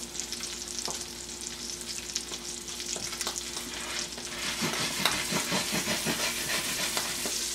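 Salmon fillet frying in butter in a stainless steel pan, a steady sizzle. About halfway through the pan is shaken and the crackling grows busier and louder as the fillet slides loose, no longer stuck to the pan.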